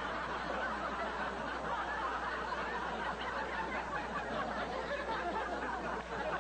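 Studio audience laughing, one long unbroken laugh.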